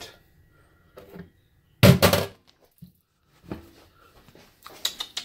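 A loud thump about two seconds in, with a few fainter knocks and handling sounds before and after it.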